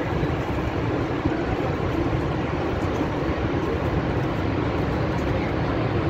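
Steady roar of the Horseshoe Falls: a continuous, even rush of falling water with a deep rumble beneath it.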